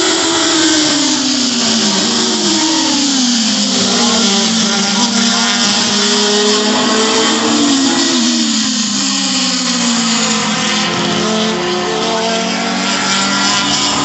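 Several Formula 2 open-wheel racing cars running hard past the track side, their engine notes overlapping and sliding down in pitch again and again.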